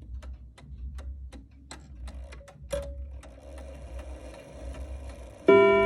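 Vintage chime clock ticking about two to three times a second. About three seconds in, its mechanism clicks and a faint whirr starts as the chime train is released. Near the end, the first chime note is struck loudly and rings on.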